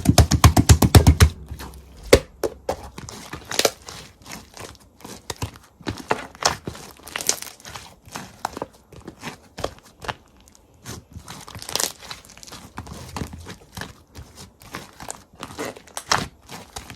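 Crisp crunching and crinkling clicks. It opens with a quick run of about a dozen sharp clicks, then goes on as irregular, scattered crackles.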